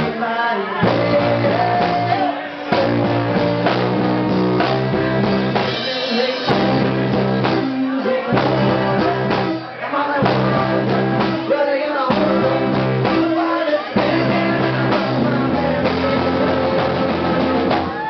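Live band music: a trombone plays held notes in short phrases over electric guitar and drums, with brief breaks between phrases.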